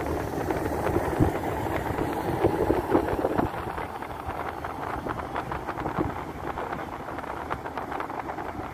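Road noise from a moving car with wind buffeting the microphone: a steady rumble with frequent crackling clicks, louder in the first few seconds.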